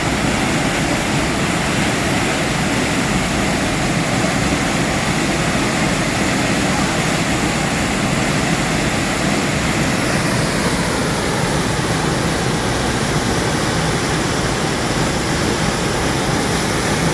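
Waterfall: a loud, steady rush of falling water, an even noise with no letup; its upper hiss thins a little about ten seconds in.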